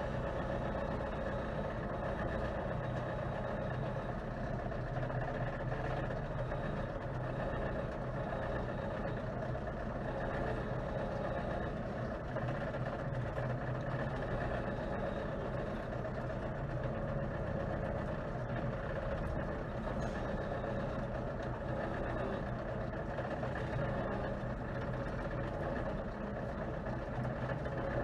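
Steady drone of a running vehicle engine, even in pitch and level throughout.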